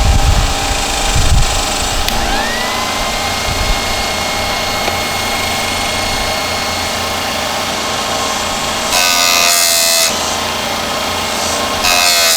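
Electric chainsaw chain sharpener starting up: its motor whine rises about two seconds in and then runs steadily. About nine seconds in, and again near the end, the grinding wheel bites into a chain tooth with a brief, louder, harsher grinding sound.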